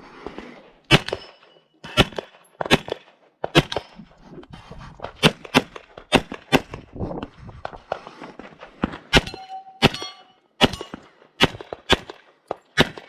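Rapid pistol fire from an STI 2011 in .40 S&W: more than twenty shots, many in quick pairs with short pauses between groups. Steel targets clang and ring when hit.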